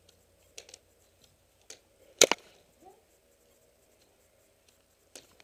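Airsoft gas blowback 1911 pistol firing: one loud sharp crack about two seconds in, with a second snap right after as the slide cycles. A few light clicks and rustles of gear come before and after.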